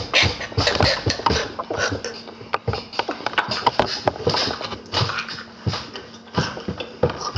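A young man laughing hard and helplessly, in short broken gasps and squeals with brief catches of breath between them.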